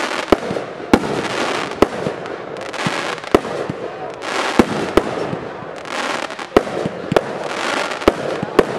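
Aerial fireworks bursting overhead: sharp bangs about one or two a second, each followed by a spreading crackle of glittering stars.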